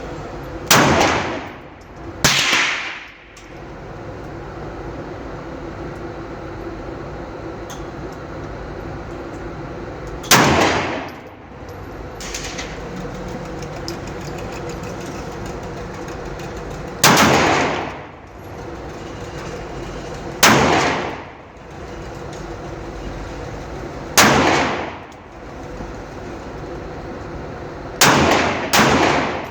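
9mm pistol fired eight times at a slow, uneven pace, each shot sharp with a short echoing tail. The last two shots come close together near the end. A steady hum runs underneath.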